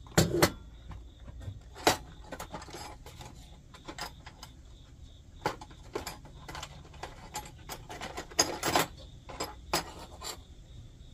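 Irregular clicks, taps and light scraping of small stove parts and tools being picked up and handled on a wooden workbench, with a few sharper knocks.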